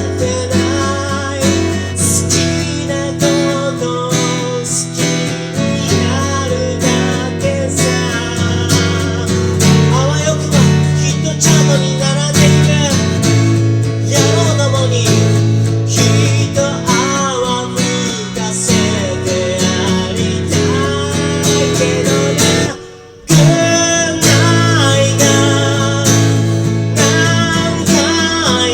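A song: a voice singing over strummed acoustic guitar. The sound cuts out briefly about three-quarters of the way through, then the song resumes.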